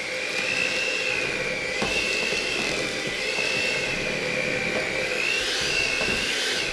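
Electric hand mixer running steadily, its beaters churning sugar cookie dough in a stainless steel bowl. Its high motor whine wavers slightly in pitch.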